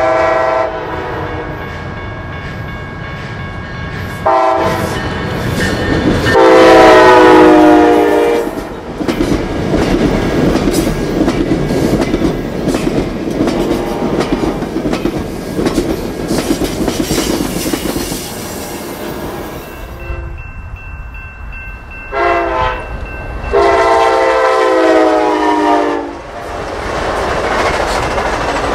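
Amtrak Cascades passenger train sounding a multi-note air horn in short and long blasts, then rumbling past with wheel clatter on the rails. After a break, another short and long horn sequence comes as a train runs by again.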